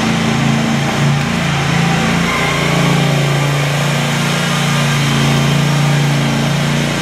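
A machine running steadily with a low, engine-like hum, its pitch wavering slightly now and then.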